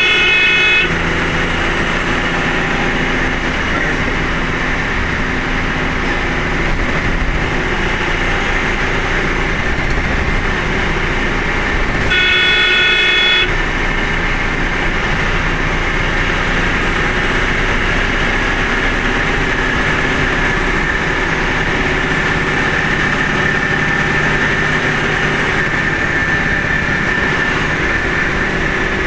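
Steady engine and road noise of a vehicle driving along a highway, heard from inside the cab. A horn sounds twice: briefly at the start, and for about a second and a half around twelve seconds in.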